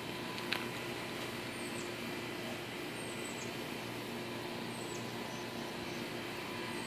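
Steady outdoor background hum with a small bird's high, short chirp, falling in pitch, repeated about every one and a half to two seconds.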